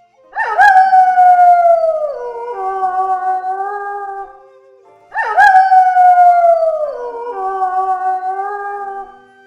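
Wolf howling twice, about five seconds apart. Each howl starts abruptly, slides slowly down in pitch, then drops to a lower, steadier note before fading.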